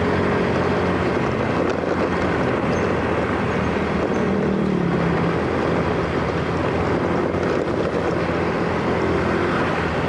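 Motor scooter engine running steadily at cruising speed, with wind rushing over the microphone. The engine note rises and dips a little about halfway through.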